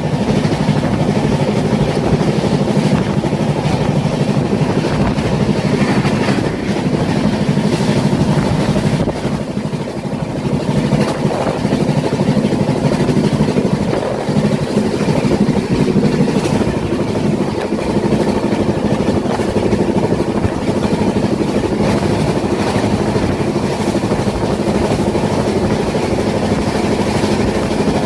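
A train running: a loud, steady continuous noise that dips briefly about ten seconds in.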